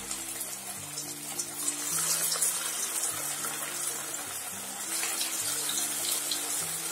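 Onion vadas sizzling and crackling in hot oil in a kadai, with a steady hiss of frying as more patties are slid in. Light background music plays underneath.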